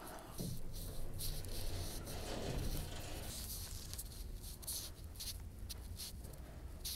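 Irregular rubbing and rustling of a handheld phone being carried while walking, over a low steady hum.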